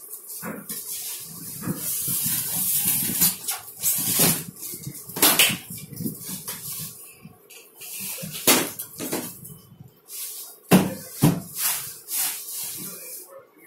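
Handling noise from a split air conditioner's plastic indoor unit and its cardboard packing: rustling, then a series of sharp knocks and clicks as the unit is handled and its front panel opened.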